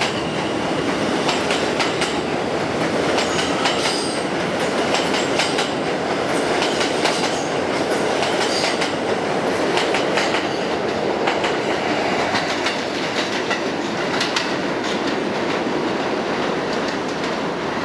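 R160A/R160B subway train rolling past on elevated track as it pulls out of the station: a steady loud rumble of wheels and car bodies, with rapid rail-joint clicks.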